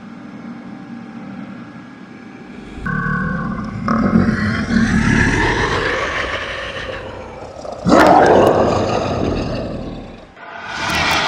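Loud, rough monster roaring that builds up, with a sudden louder outburst about eight seconds in and another short one near the end.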